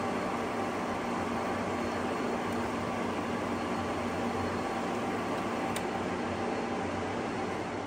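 Startrite Mercury II bench drill running with its chuck spinning, giving a steady motor and spindle hum with a constant whine. It fades out near the end.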